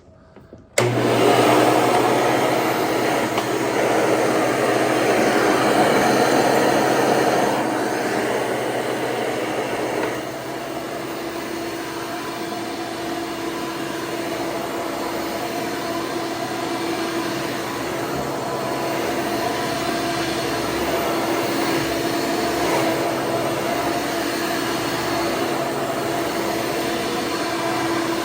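1995 Hoover Encore Supreme upright vacuum cleaner switched on about a second in and running steadily with a steady hum, its motor fitted with a twenty-blade replacement fan that makes it run smoothly and powerfully. It is loudest for the first several seconds, then settles a little quieter.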